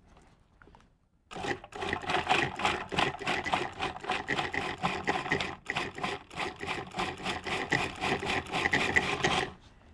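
Electric food processor running, its blade chopping walnuts, greens and garlic into pesto. It starts about a second in, runs for about eight seconds with a couple of brief dips, and stops near the end.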